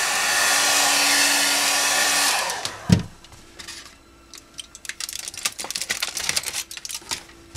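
Handheld hair dryer blowing steadily, warming masking tape so it lifts without leaving residue; it cuts off a little over two seconds in. A thump follows, then scattered crackling as blue masking tape and aluminium-foil backmasking are peeled off a painted motorcycle body part.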